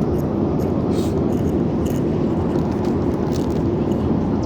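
Airliner cabin noise in flight: a steady, even roar of engines and airflow. A few faint light clicks sound now and then.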